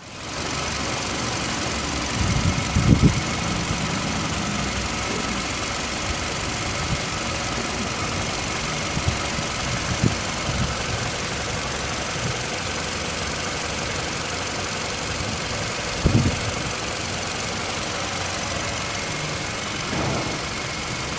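Toyota Camry 2.4-litre four-cylinder (2AZ-FE) engine idling steadily, heard close with the bonnet open. A few brief low thumps stand out over it, the loudest about three seconds in and again about sixteen seconds in.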